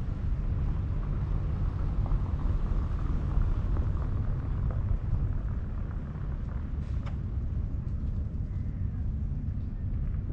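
Electric wheelchair rolling along a paved quay, giving a steady low rumble with a faint hum. A few light clicks about seven seconds in.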